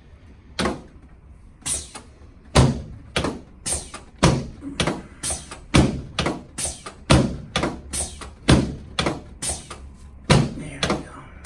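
A steady series of sharp thumps, about two a second, from hands-on chiropractic work on a patient lying on his back.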